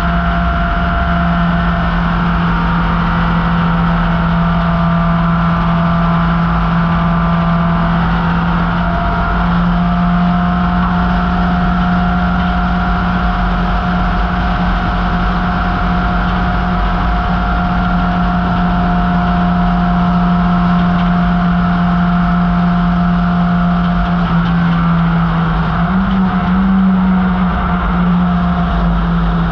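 1968 MGB GT race car's 1.8-litre B-series four-cylinder engine running at a high, nearly steady speed under load. It rises briefly in pitch near the end, then settles back.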